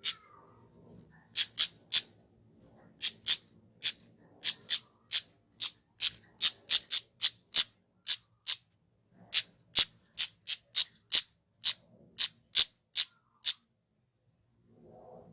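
Kemade bird calling: a rapid series of short, sharp, high-pitched chip notes, about two to three a second, with brief pauses between runs.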